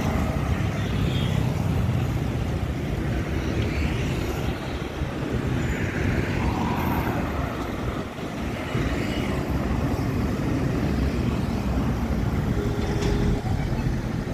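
Steady low rumble of road traffic mixed with a freight train's wagons rolling past, with cars and motorcycles going by close to the microphone a few times.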